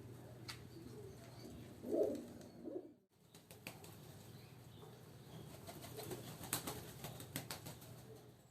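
Pigeons: a short low coo about two seconds in, followed later by wing flapping and scattered light clicks and rustles.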